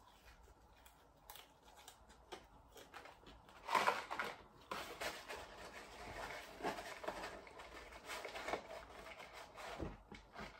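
Faint eating and table noises: a man chewing chips, with scattered light clicks and rustles, the loudest about four seconds in and a soft knock near the end.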